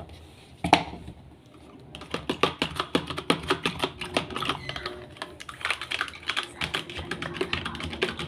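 Stirring a turmeric, water and washing-powder mixture in a plastic tub: a single click a little under a second in, then from about two seconds on a rapid, uneven run of clicks and taps against the plastic, several a second.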